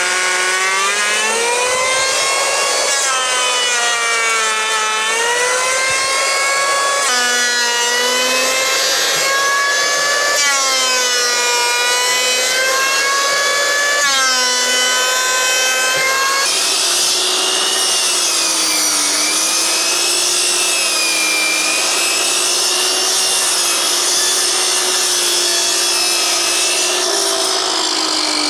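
Electric hand planer running and shaving wood, its motor whine dipping in pitch as it bogs under load on each pass and recovering between passes, about every three seconds. After a sudden change past halfway the whine holds steadier with a slight waver.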